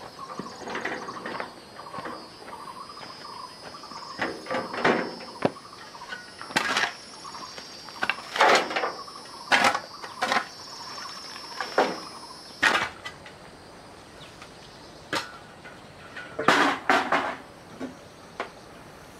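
Irregular knocks, taps and short scrapes of manual building work, with a faint steady high tone in the background that stops about two-thirds of the way in.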